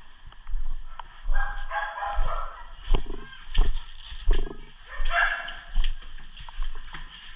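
A dog barking repeatedly, about one bark every two-thirds of a second, with longer pitched calls in between.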